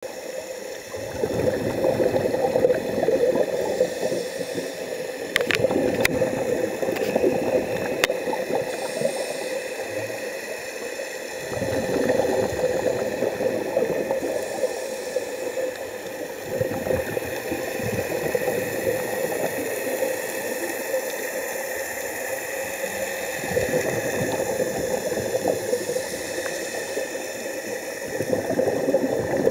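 Underwater scuba sound: a diver's regulator breathing, with bubbling exhalations that swell every five or six seconds over a steady hum. A few sharp clicks fall a few seconds in.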